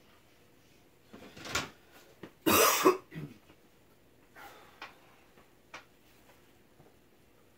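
A person coughs: a shorter cough about a second and a half in, then a louder, harder one about two and a half seconds in. Afterwards come a few faint clicks over the low hum of the spinning ceiling fan.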